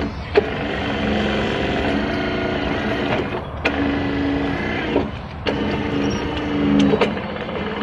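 Hydraulic pump of a 1:12 scale RC CAT excavator whining as the long boom and arm are worked, its pitch stepping up and down as the load changes. It stops briefly about three times, each time starting again with a sharp click.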